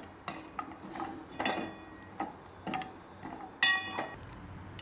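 Metal spoon clinking and scraping against a small stainless steel pan while stirring cashews frying in ghee. Several separate clinks; the loudest, about three and a half seconds in, rings briefly.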